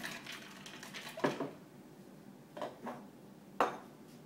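About four light knocks and clinks as a metal cocktail shaker and an aluminium drink can are handled and set down on a kitchen countertop, the sharpest about a second in.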